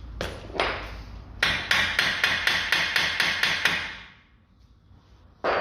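Quick, even hammer blows on a stuck driveshaft, about four to five a second for a couple of seconds after a few single knocks, as it is driven out of a seized front wheel hub.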